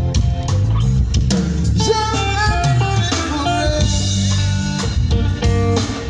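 Live band playing: guitar over bass and a drum kit, with steady drum hits.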